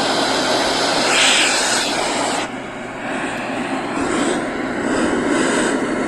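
Loud hiss of FM radio static from a small alarm-clock radio's speaker, tuned between stations in FM mode. The hiss switches on suddenly and shifts a little in tone about two and a half seconds in.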